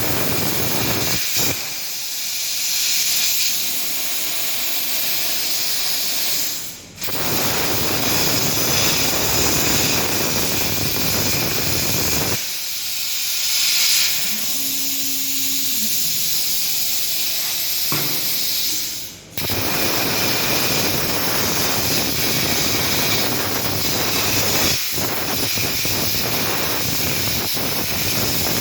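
Plasma cutting torch on a CNC cutting table, a loud steady hiss of the arc and air. Twice the hiss fades away for a moment and then comes back suddenly.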